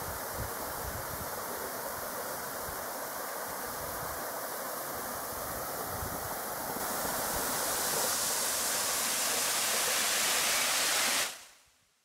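Steady rush of water from a forest stream and waterfall. It grows louder and brighter about seven seconds in, then fades out quickly near the end.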